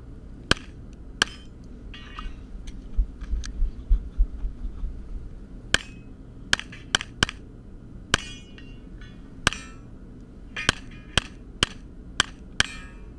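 Glock 34 9mm pistol firing a string of about a dozen sharp shots during a practical shooting stage. Two come early, then a pause, then a quicker run of shots near the end. A short metallic ring follows some of them.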